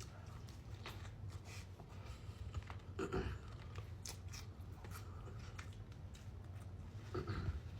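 Close-up chewing and mouth sounds of a person eating a burger: scattered small wet clicks and smacks, with a short low murmur about three seconds in and again near the end.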